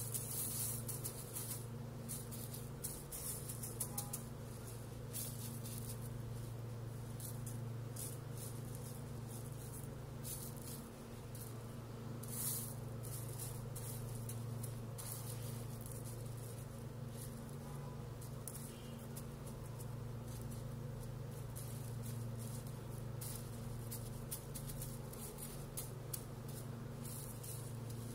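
Small coloured pebbles rattling and clicking against each other in short irregular spurts as a hand pushes and spreads them over fabric. A steady low hum runs underneath.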